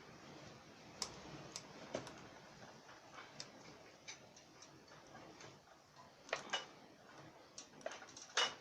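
Scattered light clicks and taps at an uneven pace, with a couple of louder knocks about six seconds in and a sharper one near the end.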